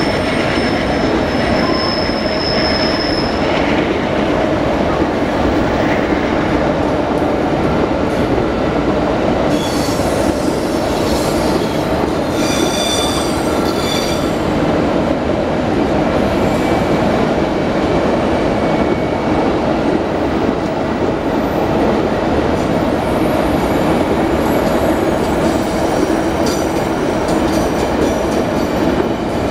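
Empty iron-ore freight cars rolling past at steady speed: a continuous loud rumble of steel wheels on rail, with high-pitched wheel squeals coming and going, strongest a little before the middle.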